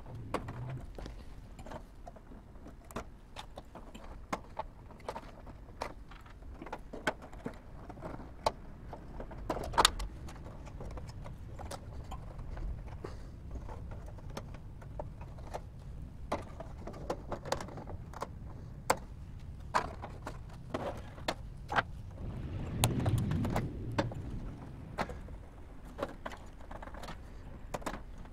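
Scattered small clicks and rattles of metal and plastic as wire connectors are worked loose from a toaster oven's power supply board by hand and with pliers, with one louder snap about ten seconds in.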